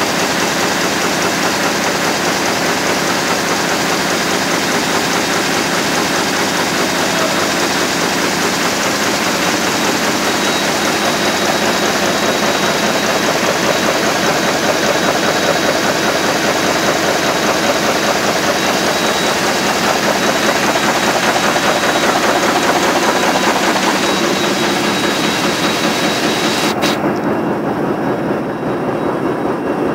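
Heidelberg Speedmaster XL 106 sheetfed offset press, six printing units plus a coating unit, running at full production speed of 18,000 sheets an hour: a loud, dense, steady mechanical running sound. Near the end a single click, after which the higher part of the sound drops away.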